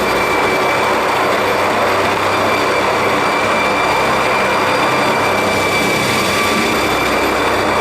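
National Park Service helicopter working close by: a loud, steady rotor and engine noise with a steady high whine on top.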